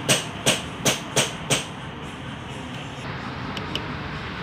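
Five sharp knocks in quick succession, about three a second, then steady background noise with two faint ticks near the end.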